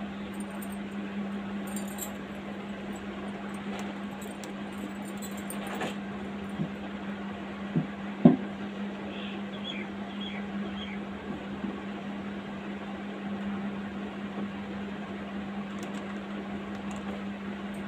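A steady low hum under even room noise, with a few short soft knocks about seven to eight seconds in.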